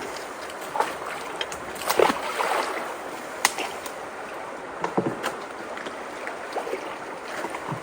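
Steady rush of flowing water at a clogged culvert, broken by scattered short, sharp noises, the loudest about two seconds in.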